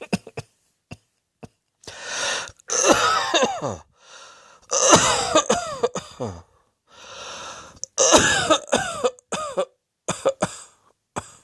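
A person coughing hard in three fits, each starting with a drawn-in breath and running into a rapid string of coughs with a wheezy tone that falls in pitch. A few short clicks come before the first fit and after the last.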